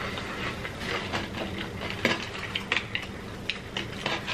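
Close-miked eating: chewing and handling of fast food, heard as irregular small clicks and smacks.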